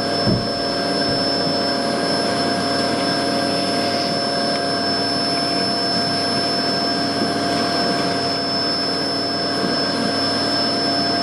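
Vacuum running steadily with a constant high whine, its hose sucking honeybees off the comb of a colony inside a wall cavity.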